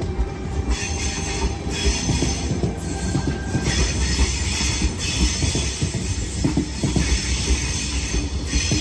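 Sydney Trains Tangara double-deck electric train running along the platform, its wheels clacking and knocking irregularly under a steady low rumble, with bands of high hiss and squeal that rise and fall every second or so.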